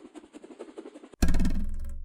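Percussion: a fast, rolling rattle like a drum roll, then about a second in a sudden loud hit with a deep ringing tail that slowly fades.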